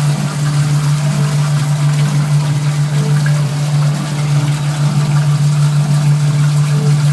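Toilet running on and on after a flush, water rushing into the tank with a loud, steady low hum, the sound of a fill valve that won't shut off.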